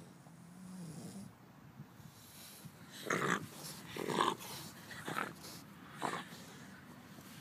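French bulldog's noisy breathing: a low snore near the start, then four loud rough breaths about a second apart.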